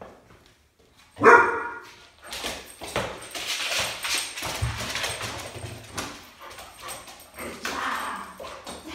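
A puppy barks once, loudly, about a second in, then a few seconds of scuffling noise as it runs and plays on a hardwood floor, with more short yips near the end.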